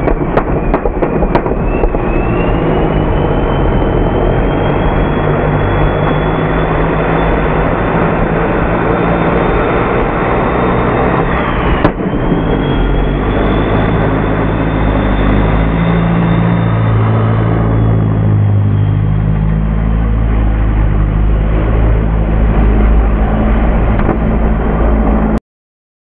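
Engine of a Suzuki Samurai swapped to a turbocharged Toyota 4A-GE 1.6-litre four-cylinder, running loudly with a high whine that slowly rises in pitch. The whine breaks off with a click about halfway through, returns, then fades, and all sound cuts off abruptly near the end.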